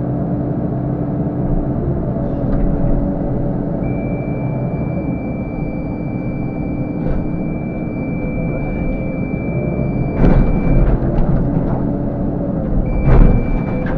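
CAT 308 excavator's diesel engine and hydraulics running steadily, heard from inside the cab, with a steady high whine while the boom works. Near the end the grapple bucket crashes down into the stable's shingled roof twice, about three seconds apart.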